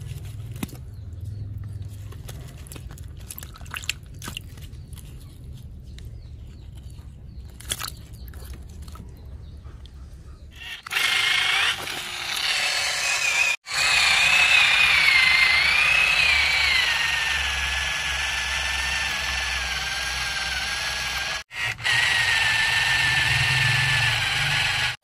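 Small electric gear motor of a plastic toy RC vehicle: scattered light plastic clicks and knocks over a low hum, then about eleven seconds in the motor starts whining loudly, its pitch wavering before it settles steady, with two abrupt cuts.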